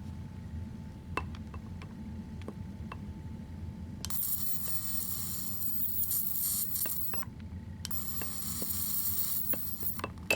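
Edison arc beam USB lighter firing its electric arc, a high buzzing hiss, twice: about three seconds long starting about four seconds in, then about two seconds more after a short break. A few light clicks come before it.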